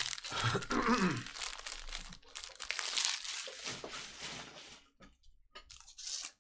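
Crinkling and crumpling of foil trading-card pack wrappers being handled, a dense run of scratchy crackles that thins out about five seconds in, with a little more near the end.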